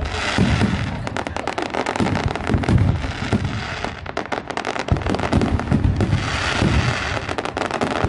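Aerial fireworks going off in rapid succession, a dense barrage of booming shell bursts and crackling stars overlapping almost without a break. There is a brief lull about four seconds in, and then the barrage picks up again.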